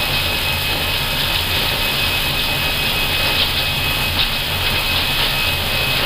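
Airbus A320 at takeoff thrust on its takeoff roll, heard from the cockpit: steady jet engine and rushing noise with a low rumble underneath and a thin, steady high whine.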